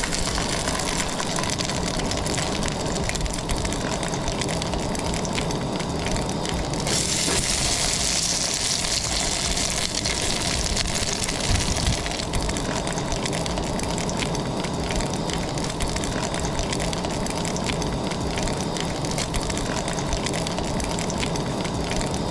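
Cubes of bear fat sizzling and crackling as they render down in a small pot over a propane camp stove burner. It is a steady sizzle with dense crackle, brighter and sharper for a few seconds about a third of the way in.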